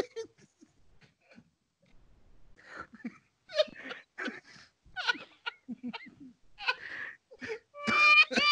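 Two men laughing hard: after a couple of seconds of near silence, short breathy gasps of laughter come in uneven bursts, ending in a higher-pitched laughing cry near the end.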